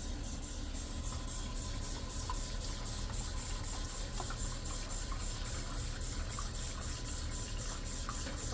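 Warm water running from a tap into a measuring cup of sugar, a steady rush that is shut off right at the end.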